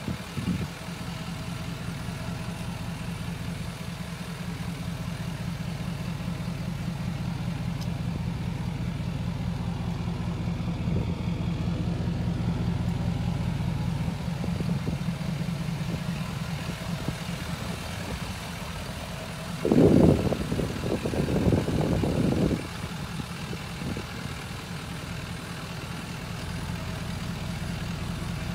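Ford 6.7L Power Stroke V8 turbodiesel of a 2014 F-350 idling steadily, heard from outside the truck. About two-thirds of the way in, a louder noisy burst lasts about three seconds.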